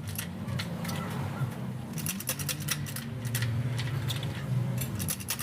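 Light metallic clinks and ticks, irregular and repeated, from the press and tools at work on the heated aluminium alloy motorcycle wheel rim as its dent is pressed out, over a steady low hum.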